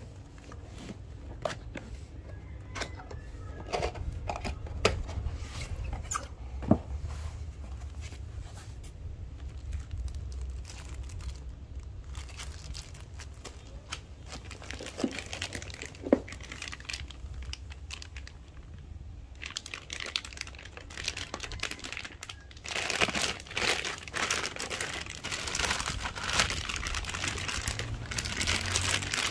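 Cardboard packaging being opened and handled, with scattered taps and knocks. In the last third comes steady crinkling of the clear plastic wrap around the audio processor as it is lifted out of the box.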